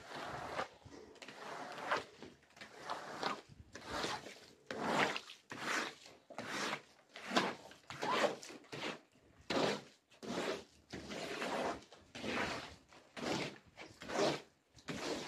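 Rubber floor squeegee pushed in repeated strokes across a soaked, soapy rug, swishing as it squeezes the wash water out, about one stroke a second.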